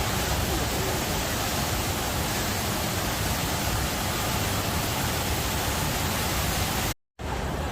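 Waterfall roaring: a steady, loud rush of falling water. It cuts out for a moment near the end, then picks up again slightly duller.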